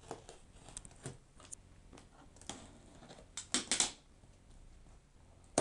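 Laptop box and packaging being handled: scattered taps, clicks and rustles, with a louder burst of crackly rustling about three and a half seconds in and a sharp click at the end.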